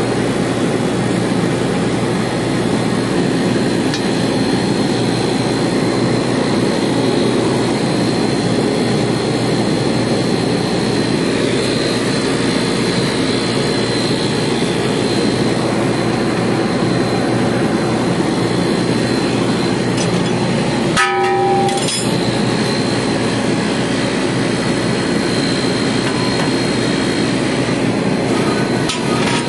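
Steady, loud machinery drone with a thin high whine running through it. A single short ringing knock sounds about 21 seconds in.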